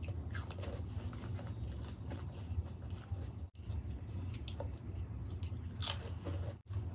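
Close-miked eating: crunching bites into crisp hollow golgappa (pani puri) shells filled with yogurt, and wet chewing, as scattered short crackles over a steady low hum.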